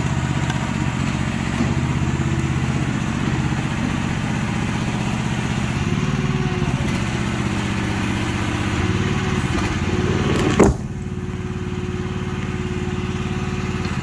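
Mini excavator's small engine running steadily under hydraulic load while it lifts a slab of concrete deck. About ten and a half seconds in there is a single loud crash as the slab drops, and the engine then runs on more quietly with a steady hum.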